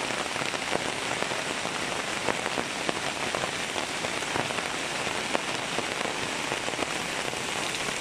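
Steady rain falling, with many separate drops striking close by.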